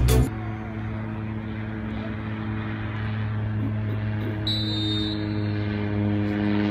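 A steady low hum with several even overtones. About four and a half seconds in, a short high whistle blast sounds, a referee's whistle for the restart.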